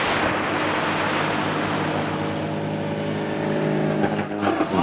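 Single-engine light aircraft's propeller engine running with a steady drone over a rushing hiss, as the plane rolls across the sand and into the shallows. The drone cuts off abruptly about four seconds in.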